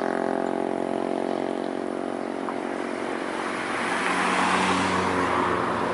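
Heavy diesel vehicles, an intercity bus and a truck, passing at close range: a steady engine drone at first, then a louder rushing sound of the passing bus from about four seconds in.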